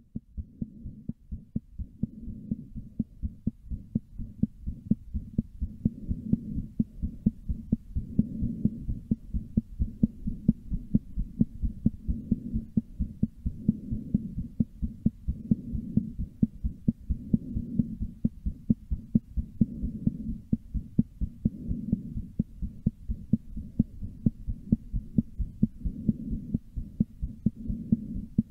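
A woman's heartbeat, recorded up close, beating fast in an even rhythm of low thumps with a low hum beneath.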